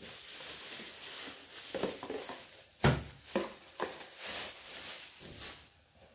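Plastic wrapping rustling and crinkling as a plastic storage container is pulled out of its bag, with a few clicks and one sharp knock about three seconds in.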